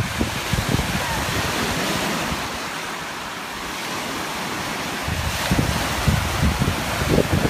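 Small lake waves breaking and washing over a pebbly shore, with wind buffeting the microphone. The wind rumble eases in the middle and picks up again about five seconds in.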